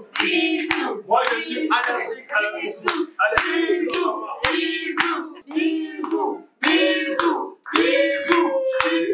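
Voices in short, rapid phrases with several sharp hand claps between them.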